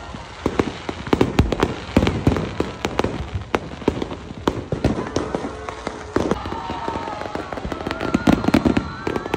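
Aerial fireworks going off: many sharp bangs and crackles in quick succession.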